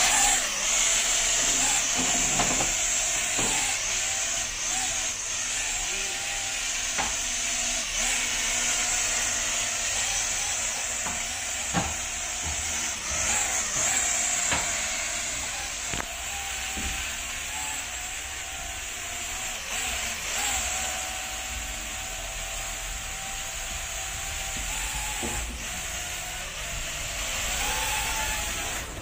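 Toy RC combat aircraft running: a steady high hiss with a wavering hum beneath it, broken by scattered short clicks.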